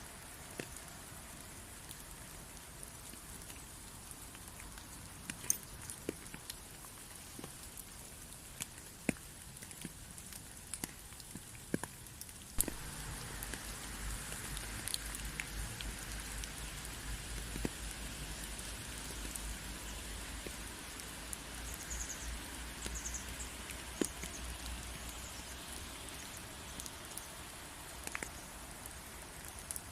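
Steady rain falling, with scattered individual drops ticking on a surface. About halfway through it grows louder and a low rumble joins in, which fades away near the end.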